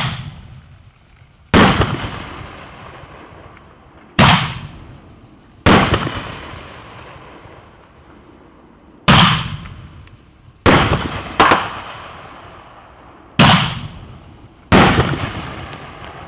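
Superior Fireworks 'Rolling Thunder' consumer firework cake firing its shots: about nine loud, sharp bangs from shells lifting and breaking, at uneven gaps of one to three seconds. Each bang trails off in a long, echoing rumble.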